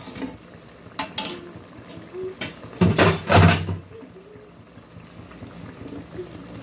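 Spatula scraping and knocking against a ceramic plate and the kadai as fried paneer cubes are slid into bubbling masala gravy: a few sharp clicks about a second in, then a loud clatter about three seconds in, with the gravy simmering quietly between.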